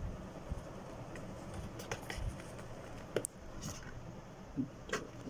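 Faint handling noise with a few scattered small clicks and taps as hands move a plastic drone remote controller around in its cardboard and pulp packaging.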